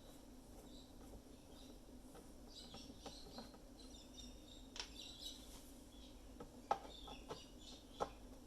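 Quiet clicks and taps of machine parts being handled, the two loudest near the end, over faint high chirping and a steady low hum.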